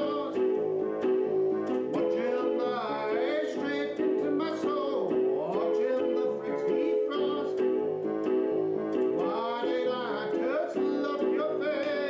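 A song: an electronic keyboard holds steady sustained chords while a voice sings over it with a wavering, vibrato-like line.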